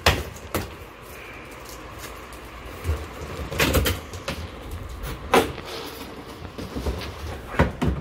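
Cardboard box being opened by hand: flaps pulled and bent open and packed parts taken out, with a few sharp knocks and crackles, the loudest right at the start, about five seconds in and near the end.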